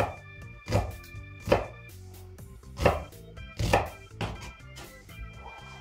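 Kitchen knife chopping a red onion into big cubes on a wooden cutting board: about six sharp knife strikes on the board, spaced roughly a second apart.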